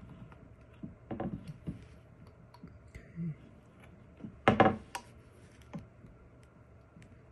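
Carving knife cutting small slivers from very hard wood: a scatter of small clicks and short crunching cuts, the loudest about four and a half seconds in.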